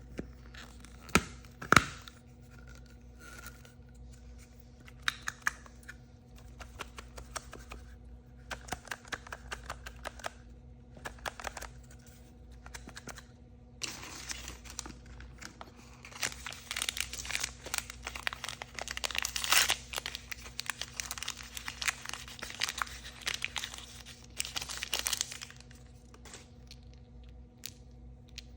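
Surprise-toy packaging being torn open and crinkled by hand. There are two sharp clicks about a second in, scattered rustles, then a long dense stretch of crinkling in the second half.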